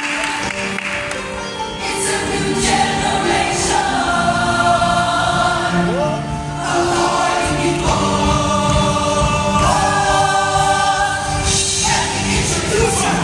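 Show choir singing in harmony with instrumental accompaniment, holding long sustained chords that change every second or two.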